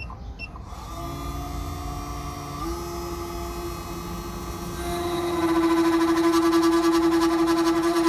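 Key-cutting machine motor running with a steady hum, stepping up in pitch about three seconds in, then louder and pulsing rapidly from about five seconds in while cutting a duplicate HU66 car key.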